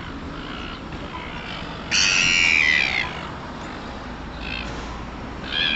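Gull calling: one loud, harsh squawk about two seconds in, lasting about a second, then two shorter calls near the end.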